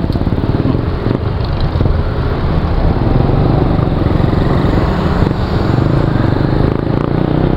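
Yamaha NMAX scooter running steadily at cruising speed, its engine drone mixed with riding noise.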